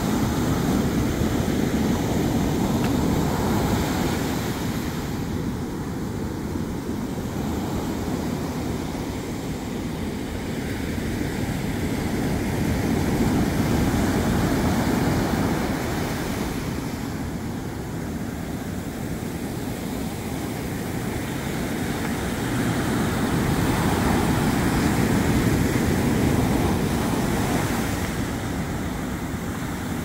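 Ocean surf breaking on a sandy beach and washing up the shore in foam: a steady rush that swells three times, near the start, around the middle and again late on, as each set of waves comes in.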